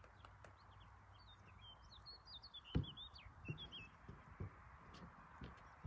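A small songbird sings a quick run of short chirping notes, faint, for about two seconds in the middle. A sharp knock comes about three seconds in, followed by a few soft thuds.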